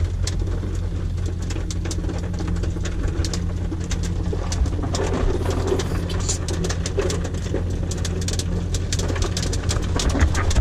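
Heavy rain, with hail, striking the car as many sharp ticks that grow denser about halfway through, over a steady low rumble.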